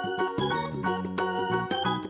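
Background music of bright keyboard notes with an organ-like tone, played in a quick melody over held chords.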